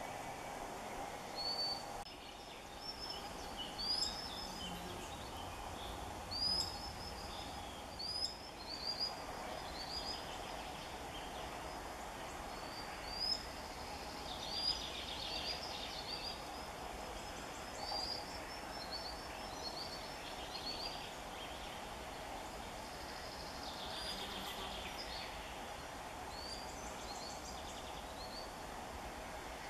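Common sandpiper giving repeated short, high, piercing calls in irregular runs, the alarm it raises near its hidden chicks, over a steady background hum.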